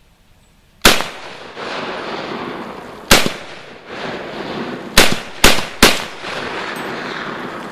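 Five rifle shots from a Springfield M1 Garand in .30-06, emptying the rifle: two shots a couple of seconds apart, then three in quick succession. Each shot is followed by a long reverberating tail.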